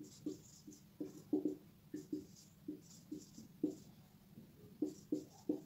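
Marker pen writing on a whiteboard: a run of short, separate strokes, about three a second, as figures are written out.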